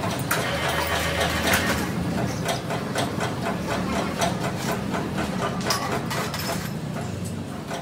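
Metal clicking and clanking from hand tools working on metal parts, a quick irregular run of ticks over a steady low hum.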